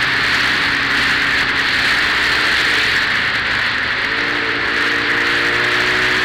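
Motorcycle engine heard from the rider's position over a steady rush of riding wind. Its note is faint, off the throttle, for about four seconds, then comes back strongly and rises gently as the bike accelerates again.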